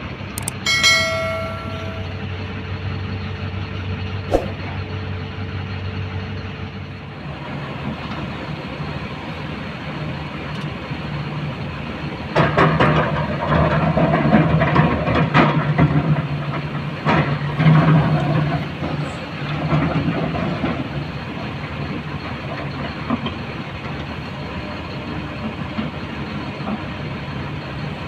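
Heavy diesel machinery at work: an excavator and a Mahindra Blazo tipper truck running. Loud clattering of rock and earth being dropped into the tipper's steel body comes from about twelve to twenty seconds in, over a heavier engine note. A short chime sounds about a second in.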